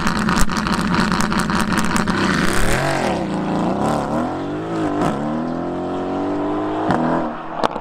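Mercedes-AMG GT's twin-turbo V8 pulling away. It opens with a rapid crackling burble from the exhaust, then the engine note rises and drops a few times as it changes up through the gears, growing fainter as the car recedes.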